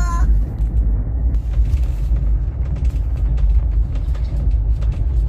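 Passenger train running, a steady low rumble.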